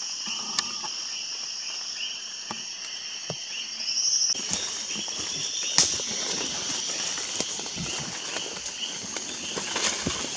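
Rainforest insect chorus: a steady high-pitched buzzing and trilling in two bands, with one pulsing call rising briefly about four seconds in. Scattered sharp clicks and knocks sound over it, the loudest a little past the middle.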